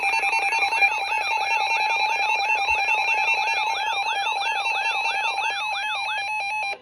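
Emergency Alert System attention signal: two steady tones sounding together. A warbling sweep that repeats about three times a second is layered over them. The sweeps stop near the end, and then the tones cut off abruptly.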